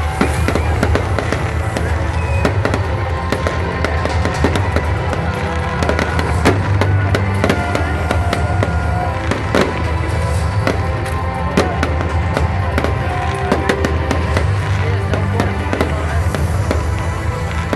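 Fireworks display: a continuous run of bangs and crackling pops, with music playing throughout.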